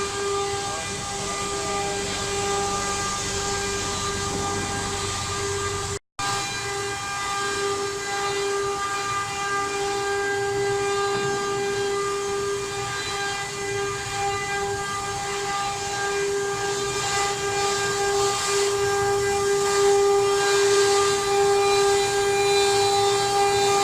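CNC wood router spindle running, a steady whine with a hiss of cutting and dust extraction underneath. The sound drops out for an instant about six seconds in.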